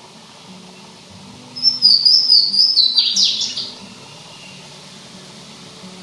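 Louisiana waterthrush singing one song, about a second and a half in: several clear whistled notes stepping down in pitch, then a quick jumbled twitter of falling notes.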